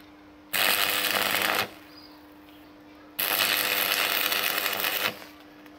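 Electric arc welding crackling in two bursts, one about a second long and then one about two seconds long: spot welds fixing a nut onto the tip of a rust-seized stud. A faint steady hum runs underneath.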